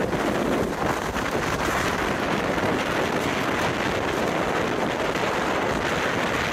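Strong wind buffeting the microphone: a loud, steady rush with a fluttering low rumble, as snow is blown across the ground.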